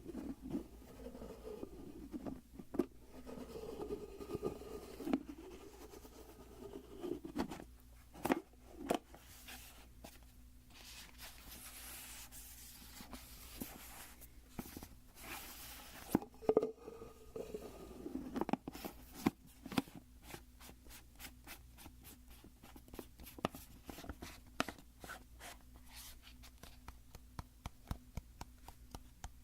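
Fingers and nails scratching, rubbing and tapping on a supplement bottle, with squeaky rubbing early on, a hissing scratch in the middle and a run of quick taps in the last third.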